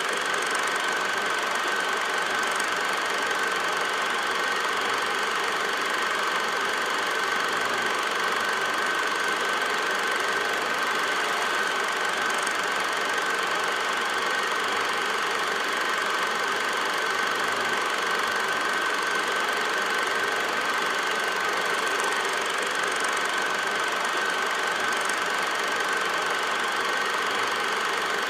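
An 8mm film projector running: a steady mechanical whir with a constant whine and even hiss.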